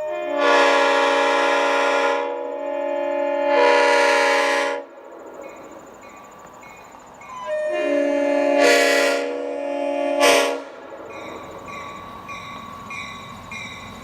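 Locomotive multi-chime air horn sounding four blasts in two pairs: two long ones, then a long and a shorter one. A faint ringing repeats about twice a second between and after them.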